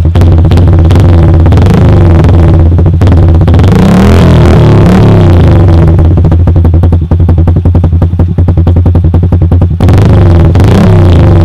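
Kawasaki KSR110's small single-cylinder four-stroke engine running through a loud aftermarket slip-on exhaust, with a fast, rapid popping beat. It is revved up and let back down about four seconds in, and again near the end.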